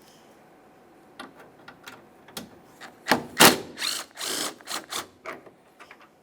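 Ratchet and T27 Torx socket clicking in short bursts as a door-handle mounting bolt is backed out. Sparse clicks start about a second in, and denser, louder bursts follow from about three seconds in.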